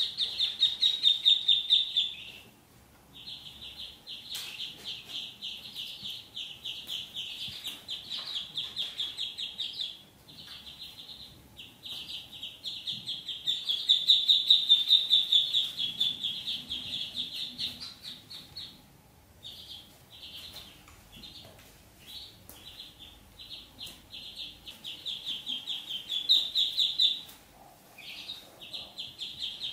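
Ducklings peeping: long bouts of rapid, high-pitched peeps with short pauses between them.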